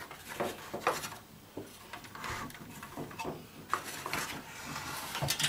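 Scattered light knocks, scrapes and rattles from a Kenwood stereo receiver's sheet-metal chassis and plastic faceplate as the unit is gripped and tilted by hand.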